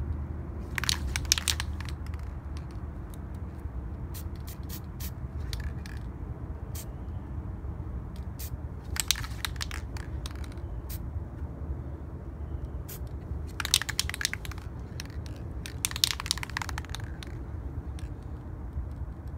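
Aerosol can of gloss white spray paint hissing in four short bursts of about a second each, with scattered light clicks and a steady low rumble underneath.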